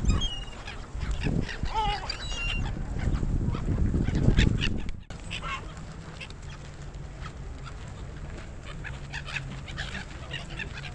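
A flock of gulls calling, many short overlapping cries. The sound is louder in the first half and drops abruptly about halfway, after which fainter calls go on over a low steady hum.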